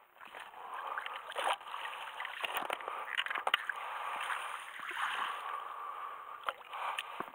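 Lake water sloshing and splashing at the shoreline, with a few short sharp clicks and knocks scattered through.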